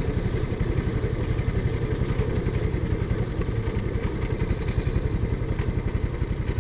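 Rental kart's single-cylinder engine running at low revs as the kart rolls slowly: a steady, fast low chugging.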